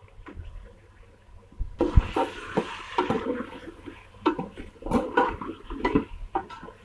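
Raw chicken pieces sizzling in hot oil in a metal pot, with a metal ladle stirring them and knocking against the pot. The sizzle and clatter start about two seconds in.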